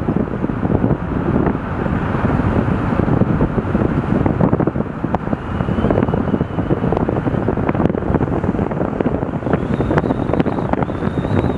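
Wind buffeting the microphone of a camera in a moving car, over steady road and tyre noise from driving at speed.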